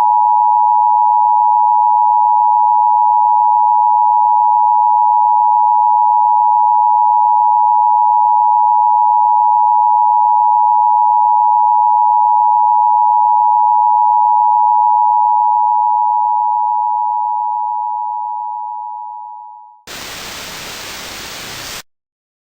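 Emergency Alert System two-tone attention signal: a steady dual tone that holds loud, then fades away over the last few seconds. About two seconds of hiss follow and cut off suddenly.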